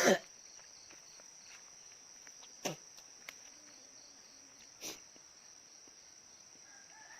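Steady high-pitched chorus of insects. Two brief sharp sounds break in, about two and a half seconds in and again near five seconds.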